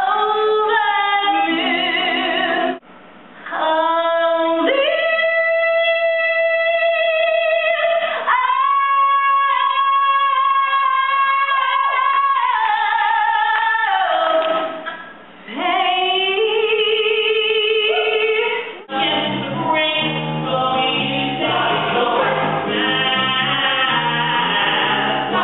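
Live musical-theatre singing: a woman sings solo, holding several long notes, until about two-thirds of the way through, when the full band and ensemble chorus come in together.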